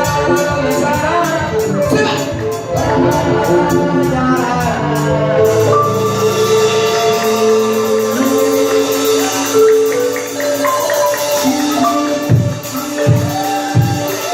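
Live West African band music: a melody played on a wooden mallet-struck xylophone, the balafon, over a rapid shaker rhythm. The shaker drops out about five and a half seconds in, giving way to longer held notes, with low drum hits near the end.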